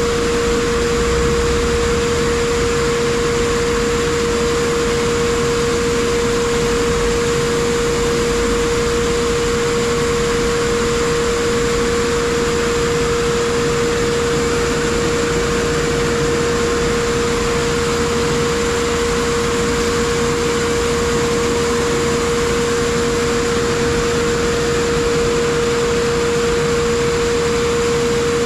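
Pressure blast cabinet blasting aluminum oxide at 85 PSI: a steady, even hiss of compressed air and abrasive from the nozzle, with a steady mid-pitched tone under it.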